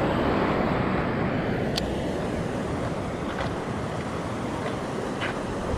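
Steady rushing noise of wind buffeting the microphone over flowing river water, with a few faint, short high chirps.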